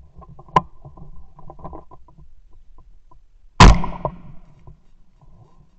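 A single shotgun shot at a flying dove, about three and a half seconds in, very loud with a short ringing tail. Before it, a sharp click and some light rustling and crackling.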